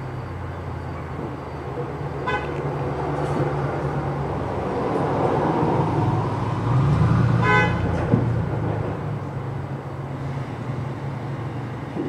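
Vehicle horn honking twice, a short toot about two seconds in and a longer one about seven and a half seconds in, over a steady low engine rumble that swells in the middle. A single sharp crack comes just after the second honk.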